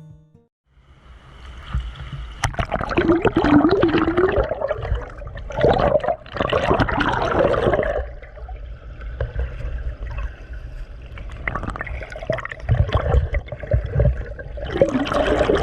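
River water splashing and gurgling close to the microphone in uneven surges, starting after a brief gap about half a second in.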